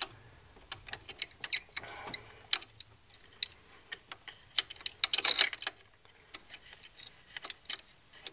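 Wrench turning a new backup-light (reverse) switch into its threads: irregular small metallic clicks and ticks, with a short flurry of clicks about five seconds in.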